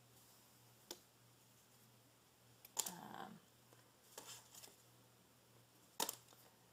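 Quiet handling of card bookmarks: a few sharp clicks and short rustles, the loudest about three seconds in and again near six seconds, over a faint steady hum.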